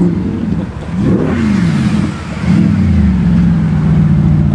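A car engine revs briefly, its pitch rising and falling about a second in, then runs at a steady pitch and grows louder from about halfway through as the car drives past.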